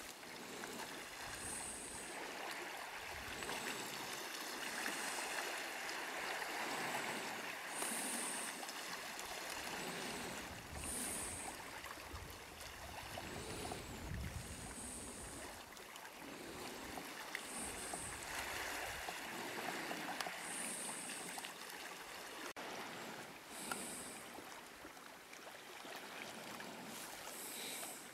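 Small waves washing through slushy ice at the water's edge: a swishing, gurgling hiss that swells and ebbs every few seconds, with short high hisses recurring throughout.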